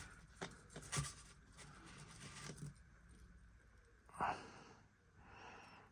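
Small clicks of handling small model-locomotive wheel and axle parts, then a heavy breath out about four seconds in and a softer breath near the end.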